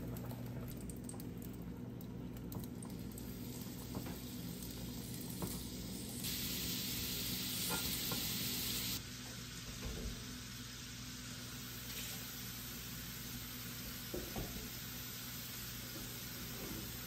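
Meatballs frying in a pan, a sizzling hiss that starts suddenly about six seconds in and stops about three seconds later, with a few light taps scattered through, over a steady low hum.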